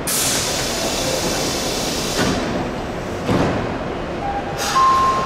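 Osaka Metro 66 series subway train at a standstill closing its pneumatic doors: a sudden rush of air hiss, then the door leaves thudding shut at about two and three seconds in. Near the end another burst of air and a steady high tone begin, the start of the train's Hitachi GTO-VVVF inverter as it gets ready to pull away.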